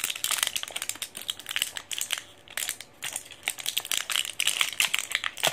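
Foil-and-plastic blister packaging crinkling as it is peeled open by hand, a fast run of small crackles.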